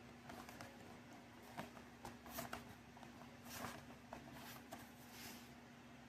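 Vinyl record packaging being handled: soft rustles of the sleeve and jacket with scattered light clicks, over a faint steady hum.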